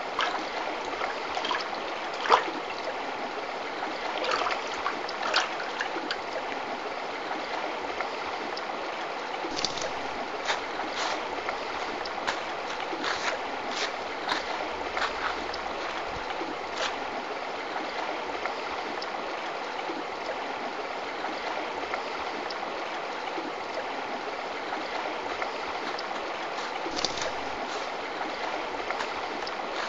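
Shallow river flowing over stones: a steady rush of water, with scattered short clicks and knocks, the sharpest about two seconds in.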